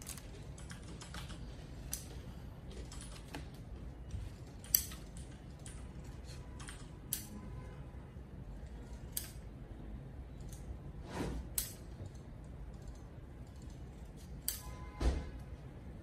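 Scissors snipping small pieces of coloured paper: irregular sharp snips and clicks, often a couple of seconds apart, with the loudest near the end.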